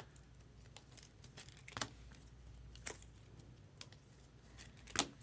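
Faint handling noise: a few scattered light clicks, the loudest just before the end, as trading cards and their packaging are handled.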